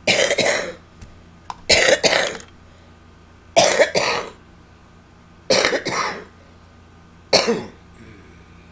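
A woman coughing in a fit: five loud bouts about two seconds apart, each a double cough, some of them into her hand.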